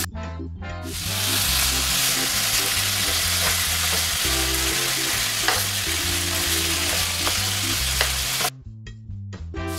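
Bacon strips sizzling as they fry in a hot frying pan with a little oil. The sizzle starts about a second in and drops out for about a second near the end.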